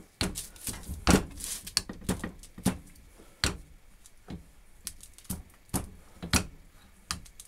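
Irregular sharp clicks and knocks of hand tools and small metal parts being picked up and set down on a workbench.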